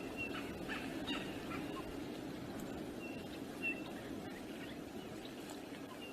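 Wind noise on the microphone, with several short, high bird calls and chirps over it, including two slightly longer whistled notes about three seconds in.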